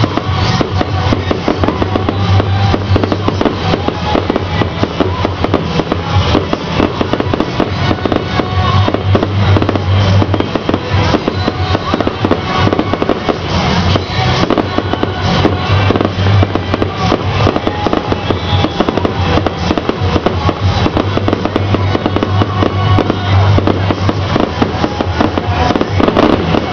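Fireworks going off in rapid succession, a dense run of bangs and crackles, with music playing loudly throughout.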